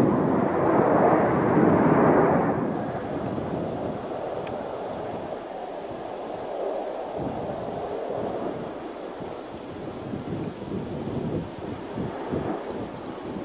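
Distant jet roar of Blue Angels F/A-18 Hornets heard from a few miles off: loud for the first two seconds or so, then dropping fairly suddenly to a fainter, uneven rumble.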